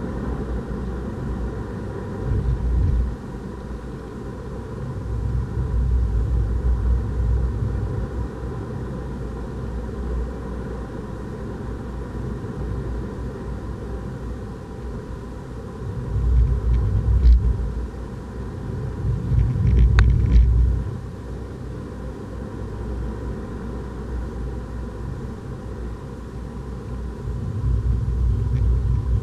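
Renault Clio RS 200 heard from inside the cabin at speed on a wet track: a steady low rumble of engine and road that swells louder several times, with a couple of brief clicks about two-thirds of the way in.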